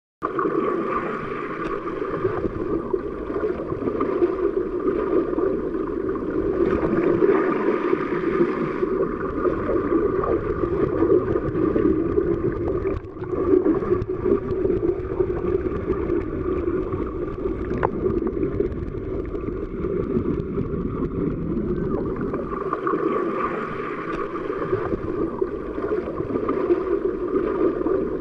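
Underwater ambience: a steady, churning wash of water noise.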